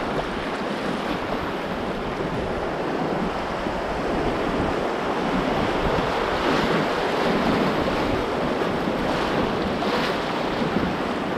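River whitewater rushing and splashing against an open canoe's hull as it runs a rapid. It grows louder about halfway through, with a few sharper splashes near the end.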